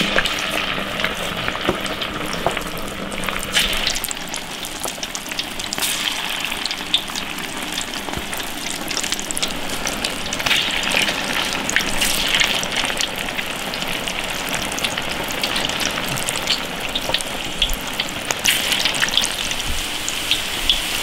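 Minced-pork meatballs deep-frying in hot oil in an iron wok: a steady sizzle full of small crackles and pops.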